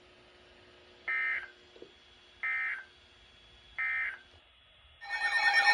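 Three short bursts of Emergency Alert System SAME digital data tones, about a second apart: the end-of-message code that closes an EAS alert. Near the end a loud alert tone starts up.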